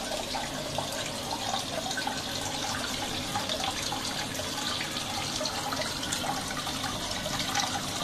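Tap water pouring from the fill inlet of a Colormaq Pioneer tanquinho into its partly filled tub, splashing steadily onto the agitator and into the water as the tub fills.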